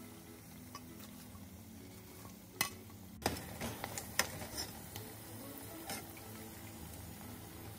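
Battered squid rings deep-frying in oil with a faint, steady sizzle. A metal slotted skimmer clicks and scrapes against the pan several times from about two and a half seconds in, as the rings are scooped out.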